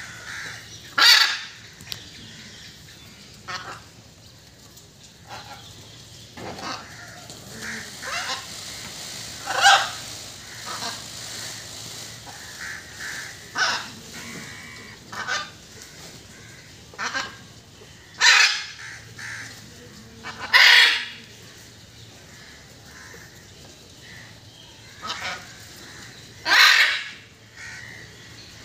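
Indian peafowl calling: five loud, short calls spread irregularly through the stretch, with fainter bird calls between them.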